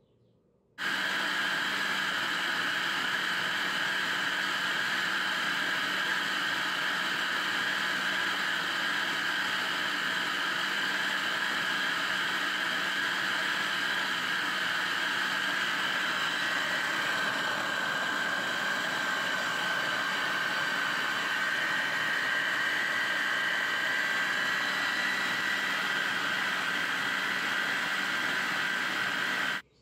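Hamilton Beach food processor running steadily, its blade grinding almond bits into almond butter. The motor switches on just under a second in and cuts off suddenly near the end.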